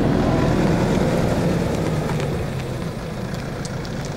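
A pickup truck driving on a sealed road: a steady low engine hum with tyre noise, easing off slightly.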